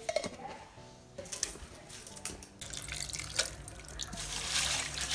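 A kitchen tap runs into a steel bowl while a hand swishes cleaned mole crabs around in turmeric water, with a few light clinks against the bowl. The running water grows louder over the last couple of seconds.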